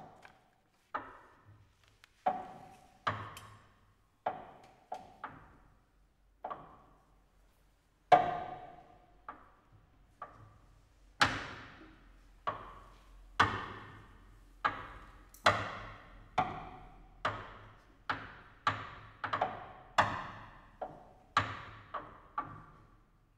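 Contemporary chamber music for clarinet, cello and piano played as a string of sharp, dry knocks and taps, each with a short ringing tail. The strikes come about a second apart at first, pause briefly, then fall closer together from about halfway through.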